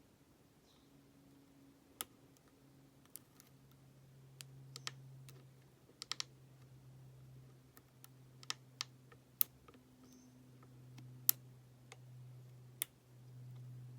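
Sparse, irregular metallic clicks and ticks of lock picks and a tension wrench working in the keyway of a Master Lock 570 padlock, over a faint low hum.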